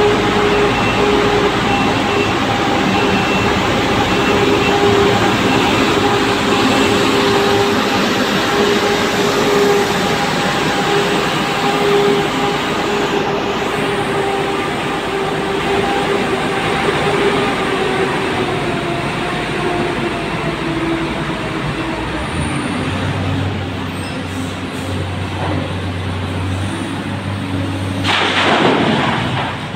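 Heavy diesel machinery running inside a rock tunnel: a dump truck's engine and an excavator make a loud, steady drone with a humming tone that drops slightly in pitch about two-thirds of the way through. A faint high beep repeats for the first several seconds, and a brief loud rush comes near the end.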